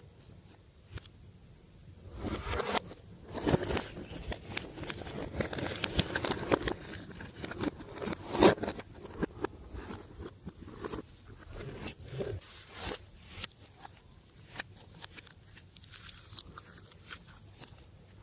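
Slime being mixed and squished, giving irregular sticky crackles, clicks and scraping. The activity is busiest in the first half, with one sharp loud pop about eight and a half seconds in, then thins to scattered clicks.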